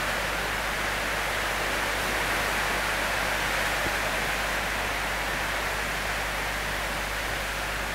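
Heavy rain falling on the roof, a steady hiss with no let-up.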